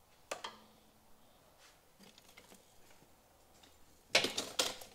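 Hand tools clicking and clattering on metal: one sharp click about a third of a second in, a few faint ticks, then a short burst of clinks and rattles near the end.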